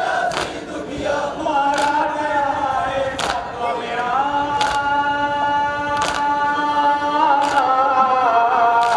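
A group of men chanting a nauha (Shia Muharram lament) in unison through a microphone, in long held lines. Sharp unison slaps of matam (rhythmic chest-beating) fall in an even beat about every second and a half.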